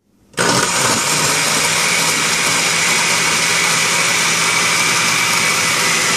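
Oster Osterizer 14-speed countertop blender running, its motor spinning a jar of ice, blueberries, protein powder and water into a shake. The steady motor sound starts abruptly about a third of a second in and holds an even pitch throughout.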